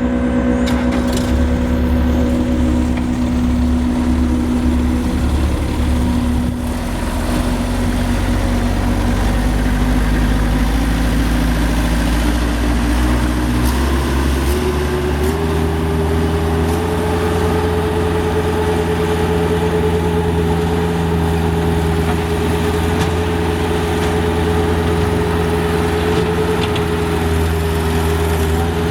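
Bobcat 773 skid steer's diesel engine running steadily, then speeding up in a couple of steps about halfway through and holding at the higher speed.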